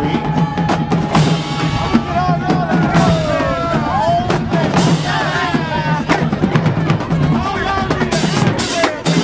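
Loud drum-driven music: bass drum, snare and drum-kit hits, with voices calling and shouting over it.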